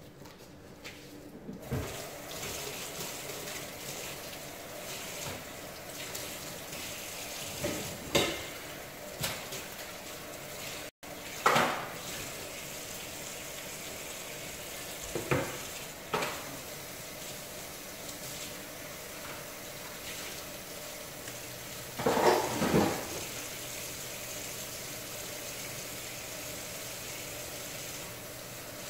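Cream sauce with chicken and shrimp heating to a boil in a covered pot, a steady sizzling simmer that builds over the first couple of seconds. A few short clinks and knocks sound now and then, the largest cluster near the end.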